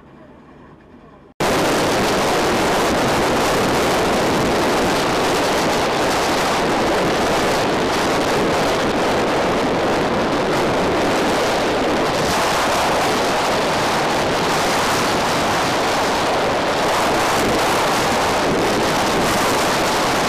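Loud, steady rush of wind on the microphone of a moving car, starting abruptly about a second and a half in.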